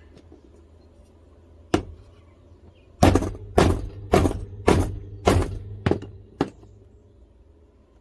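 Claw hammer striking an EC8 connector to drive its soldered pin down into the housing until it snaps into place. There is one blow, then a run of seven quick blows about twice a second.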